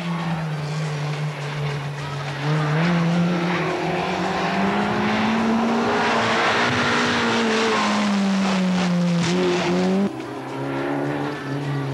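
Rally car engine running at high revs as the car speeds along a stage. The note rises as it approaches and is loudest about six to seven seconds in, then falls as it passes. About ten seconds in, the sound cuts suddenly to a quieter, lower, steady engine drone.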